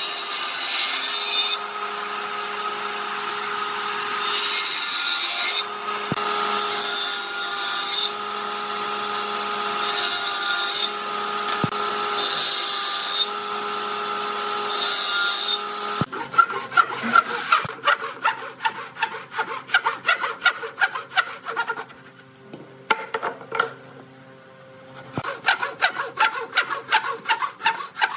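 A table saw running with a steady hum, cutting into a board in several short passes over the first half. Then a hand saw cutting a board in quick back-and-forth strokes, with a short pause about two-thirds of the way through.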